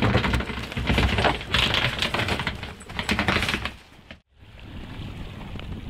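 Dense crunching and crackling of snow and ice, in several loud surges. A little after four seconds it cuts off and a quieter steady hiss follows.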